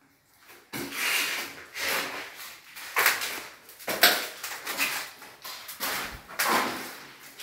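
Footsteps scuffing on a hard floor, about one a second, in a bare tiled room.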